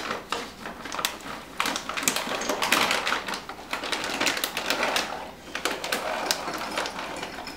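A plastic bag of chocolate chips crinkling and rustling as a hand digs around inside it, a dense, irregular run of small crackles.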